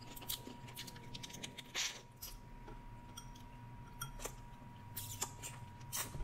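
Eating sounds: scattered small clicks, cracks and wet smacks as cooked Dungeness crab is picked apart by hand and chewed, and a piece is dipped into butter sauce.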